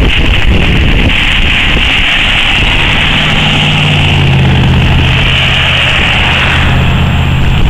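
Loud wind buffeting the microphone with a steady rushing hiss. About three seconds in, a steady low vehicle engine hum joins it.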